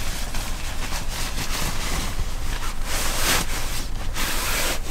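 Nylon sleeping bag rustling as it is pushed and stuffed into a stuff sack, loudest about three seconds in and near the end, over a steady low rumble of wind on the microphone.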